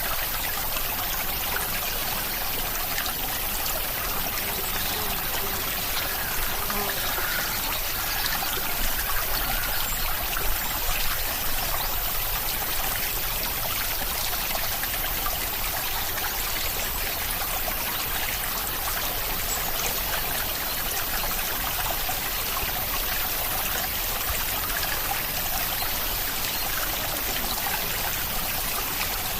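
Steady rain falling as an even hiss, with water trickling and a few slightly louder drops about a third of the way in.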